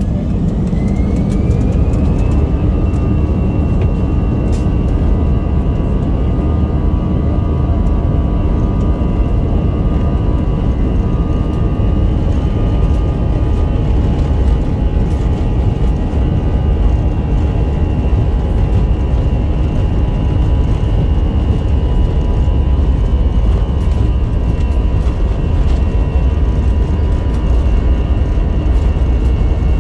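Airbus A320 jet engines heard from inside the cabin, spooling up to takeoff thrust with a rising whine over the first two seconds. They then hold a steady high whine over a loud low rumble through the takeoff roll.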